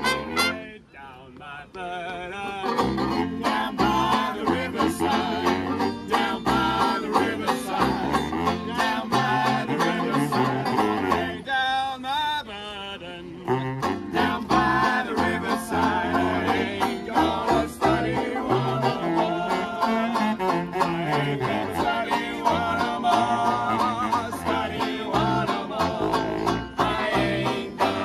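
Vintage New Orleans-style jazz band playing live: a banjo strums a steady rhythm under sung vocals, with a low saxophone line underneath. The music comes in after a brief pause about two seconds in.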